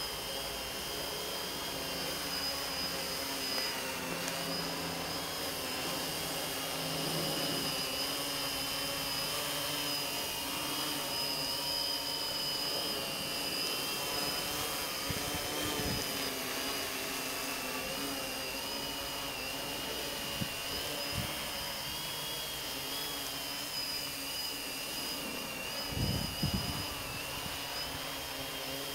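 Small electric multirotor drone hovering and manoeuvring, its motors and propellers making a steady high whine that wavers slightly in pitch as the throttle changes. A few low thumps about three seconds before the end.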